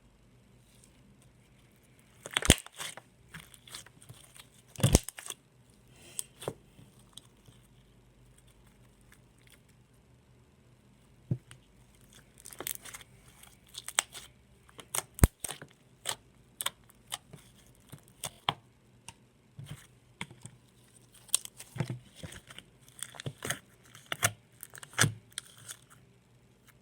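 Slime being squeezed and stretched by hand, giving irregular sharp pops and crackles as air bubbles burst, in clusters with a quiet stretch between.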